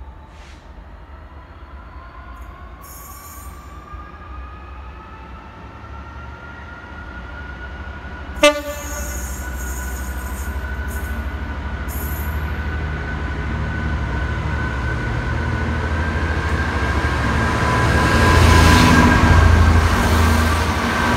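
Train approaching and passing, its engine whine slowly rising in pitch as the rumble grows louder, loudest near the end. A brief horn toot sounds about eight seconds in.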